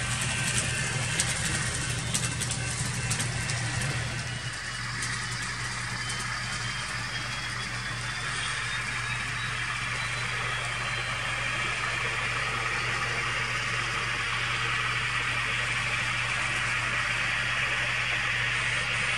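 N-scale model trains running on the layout: a steady whir of the locomotive motors and wheels on the track, with a low hum. In the first few seconds there is a quick run of clicking, then the sound settles into an even run.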